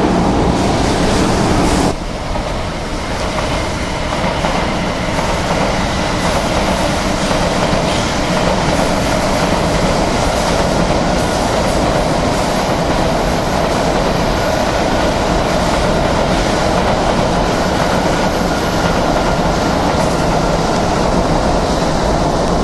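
Shinkansen 500 series high-speed train running on the line: a steady, loud rush and rumble of wheels on rails, with a sudden shift in the sound about two seconds in.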